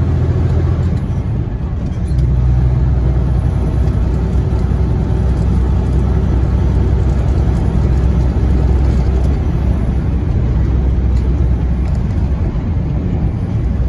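Semi-truck diesel engine and road noise heard from inside the cab while driving on the highway, a steady low drone. The sound eases off about a second in and comes back on with a slightly lower engine note.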